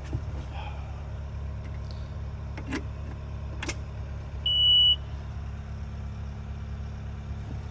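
An engine idling with a steady low hum. About halfway through, a single high electronic beep sounds for about half a second, with a few faint clicks before it.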